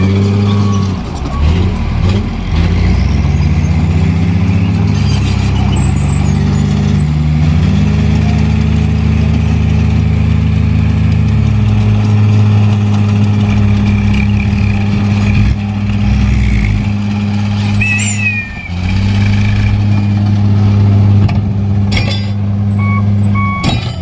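Hino dump truck's diesel engine running, its pitch rising and falling a few times as it revs. A brief high squeal about 18 seconds in, and a few short beeps near the end.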